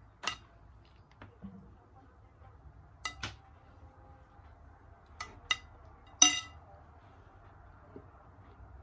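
Metal spoon clinking against a glass bowl: about six sharp clinks, some in quick pairs, the loudest about two-thirds in with a brief ring.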